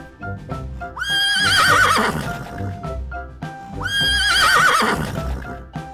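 Horse whinnying twice, about three seconds apart, each call starting high and wavering down, over light background music.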